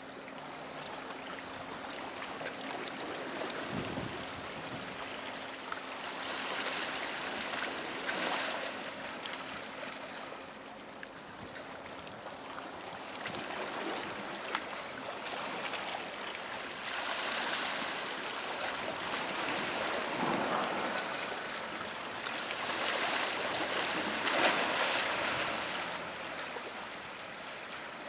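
Wash from a container ship and its escort tug, water churning and splashing along the hull, swelling and easing several times. A faint steady hum fades out after about five seconds.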